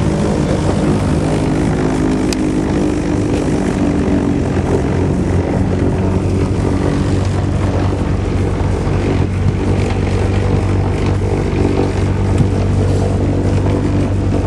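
Small propeller plane's engine and propeller droning steadily, heard from inside the cabin during takeoff; the pitch of the drone shifts about four to six seconds in.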